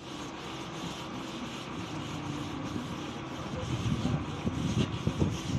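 A long-handled brush scrubbing a corrugated steel fence in quick repeated strokes, about three or four a second, over the steady low rumble of a vehicle engine.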